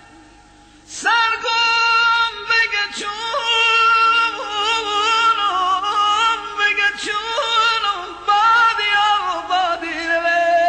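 Music with a singing voice that wavers in vibrato and slides between notes, starting about a second in after a brief quiet gap.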